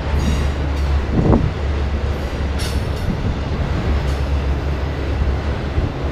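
Autorack freight cars rolling past on the track: a steady low rumble of wheels on rail, with a louder thud about a second in and two brief, faint high-pitched squeals.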